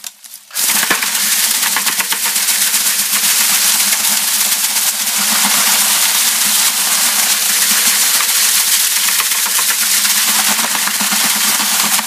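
Electric drill spinning a doubled loop of chain on a paint-stirrer shaft inside a five-gallon bucket of dried bean pods. The chain beats the pods and bucket in a loud, rapid, steady clatter over the drill motor's hum, threshing the beans out of their pods. It starts about half a second in.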